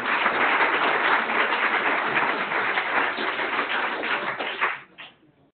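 A roomful of people applauding, a dense patter of claps that dies away near the end.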